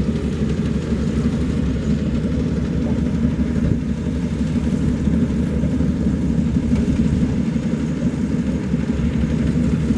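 Maxxi Bimo combine harvester running steadily, a dense low mechanical drone of engine and machinery.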